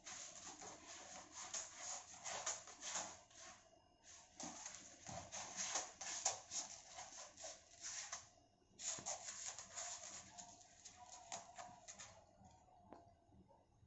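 A cat scratching and digging in granular cat litter in a plastic litter box, with rapid rasping scrapes. There are three bouts of a few seconds each, with short pauses between, and the scratching stops about twelve seconds in.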